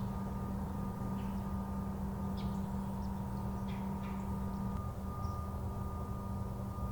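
A steady low hum with two steady higher tones, the lower of the two stopping about five seconds in. A few short, high bird chirps come at scattered moments.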